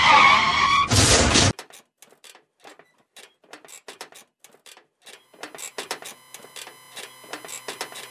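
A moped's tyres squealing in a skid, then a loud crash that cuts off suddenly about a second and a half in. Faint ticking follows, and about five and a half seconds in soft music with a ticking beat fades in.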